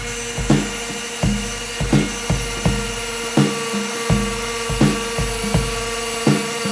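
Wire wheel spinning and brushing rust and grime off old suspension bolts, a steady high hiss over the motor's tone. Background music with a steady beat, about one thump every 0.7 s, runs alongside.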